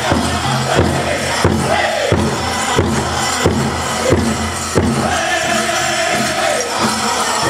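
Powwow drum group singing over a large shared drum struck in a steady beat of about one and a half strokes a second, for a chicken dance song; the voices fall in pitch from phrase to phrase, with one long held note past the middle.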